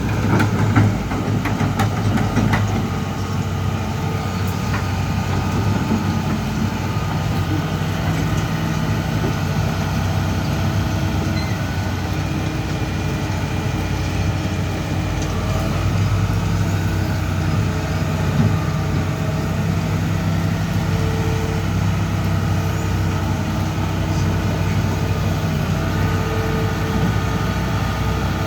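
Excavator's diesel engine running steadily, with the hiss of heavy rain. A few clicks and knocks come in the first couple of seconds.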